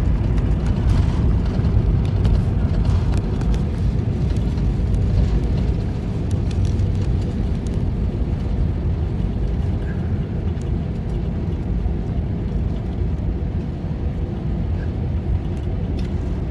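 Steady low rumble of an Airbus A321-231 heard from inside the cabin: its IAE V2500 jet engines and the airframe noise, easing a little about six seconds in.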